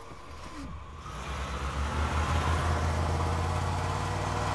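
A car engine rumbling as the vehicle pulls away. The low engine sound and road noise build up over about a second and a half, then hold steady.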